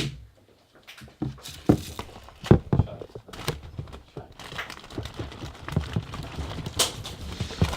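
Something being peeled by hand as a foley sound: a few separate sharp snaps and knocks, then from about four and a half seconds a continuous crackling, tearing rustle.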